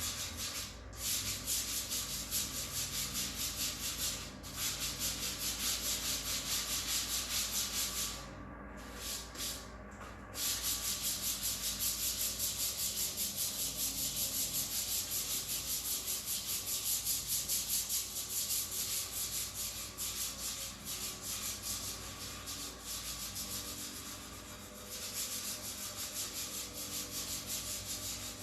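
Sandpaper rubbing over epoxy primer on a car body panel in quick, even back-and-forth strokes. It pauses briefly twice, about eight and ten seconds in.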